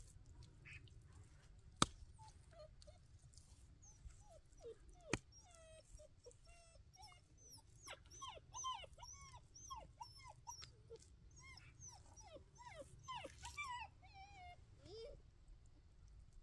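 A dog whimpering and yelping in many short, high whines, one after another, from about four seconds in until near the end. Two sharp knocks come in the first few seconds.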